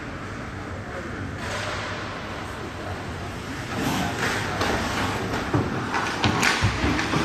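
Ice hockey play on a rink: a hiss of skates on the ice, then from about four seconds in a quick run of sharp clacks and knocks from sticks and puck, with voices calling.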